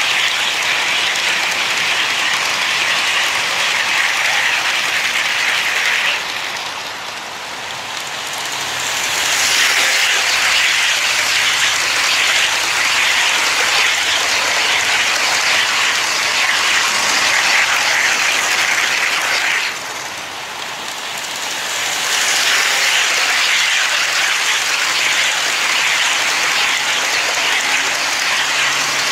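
HO scale model train rolling past close by, its wheels running on the rails in a steady hiss that dips twice and comes back.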